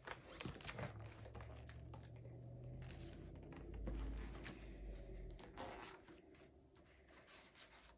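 Paper picture-book pages rustling as the book is handled and a page is turned, with soft bumps and a low rumble from moving the book, loudest about the middle.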